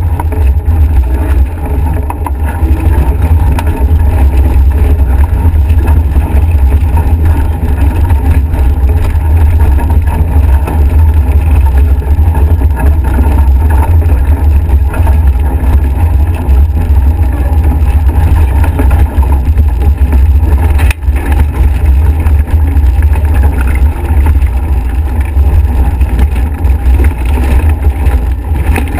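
Strong wind buffeting the microphone of a camera mounted on a Nacra 5.8 catamaran sailing fast, a loud steady rumble, with water rushing along the hull beneath it.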